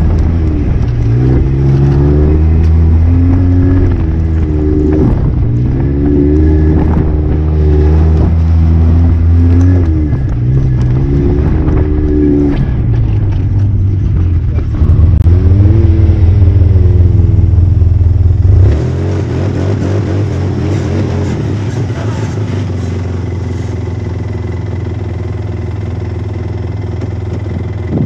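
Polaris RZR S 800 side-by-side's twin-cylinder engine revving up and down with the throttle as it is driven over sandy trails, loudest about two-thirds of the way in. It then changes abruptly to a steadier, quieter running sound.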